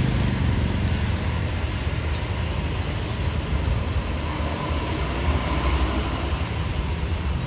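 Large bus's diesel engine running close by, a steady low rumble with no horn sounding.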